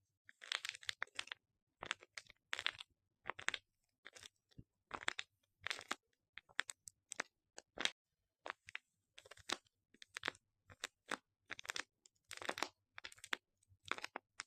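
A series of short, dry crunches, roughly one or two a second, each separated by silence.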